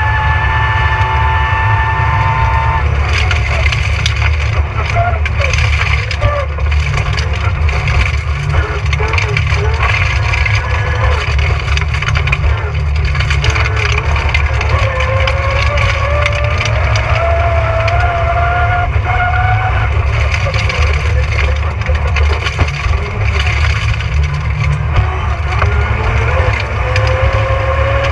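Rally car engine at full throttle on a special stage, its pitch climbing through the revs and dropping at gear changes, over heavy rumble and constant crackling noise from the car at speed.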